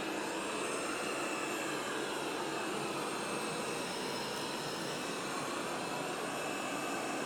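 Bagotte BG800 robot vacuum running in spot-cleaning mode: a steady whir from its suction motor with a faint high-pitched whine.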